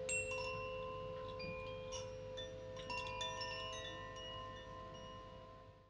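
Chimes ringing: light metallic strikes at several different pitches, scattered a few at a time, each tone ringing on and overlapping the others, fading out at the end.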